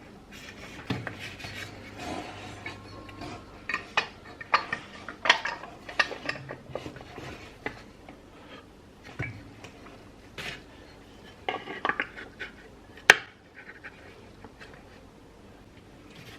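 Small metal parts and tools clinking, clattering and knocking against one another and a hard surface, in irregular bursts. A single sharp metallic click about 13 seconds in is the loudest.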